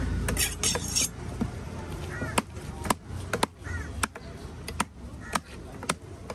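Heavy steel cleaver chopping grouper on a wooden log block. A run of sharp chops comes about two a second, starting about two seconds in, over a low background rumble.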